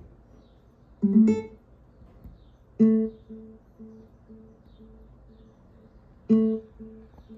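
Guitar notes played back through a small speaker cabinet under test: three single plucked notes, about a second in, near three seconds and just past six seconds, each ringing on with a fast pulsing repeat.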